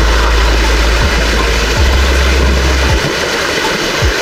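Steady rush of a small waterfall and fast-flowing brook water. A heavy low rumble on the microphone runs underneath and drops away about three seconds in.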